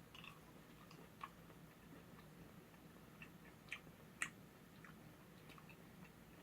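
Near silence with a faint low hum and a few small, sharp mouth clicks, loudest about four seconds in: quiet chewing of a chewy, gum-like candy.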